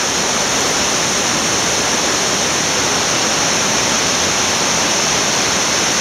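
Small mountain-creek waterfall cascading over boulders into a pool: a steady rush of falling water.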